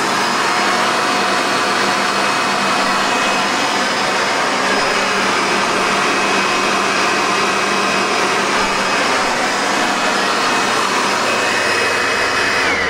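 Eureka Power Line 12-amp hard-body upright vacuum cleaner running steadily with a high motor whine. It is switched off near the end, and the whine drops in pitch as the motor winds down.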